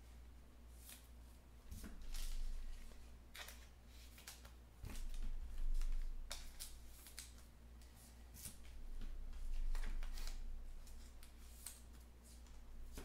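Trading cards being handled and sorted: irregular soft swishes and clicks of card stock, a few every second, over a low steady hum.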